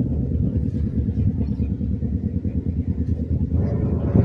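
Wind buffeting the microphone: a steady low rumble that flutters rapidly.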